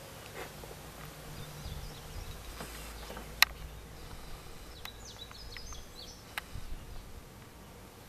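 Honey bees humming over an open hive just given smoke, against a steady outdoor background. A sharp click about three and a half seconds in, a few lighter clicks after it, and some short high bird chirps near the middle.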